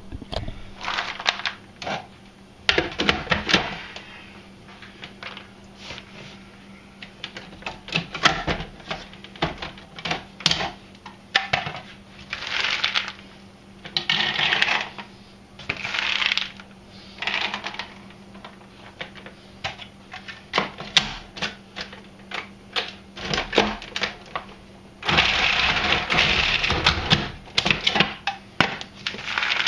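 Food processor pulsed in short bursts, chopping fresh cranberries, with clicks and rattles of hard whole berries dropping into the plastic bowl through the feed tube. The longest burst comes a few seconds before the end.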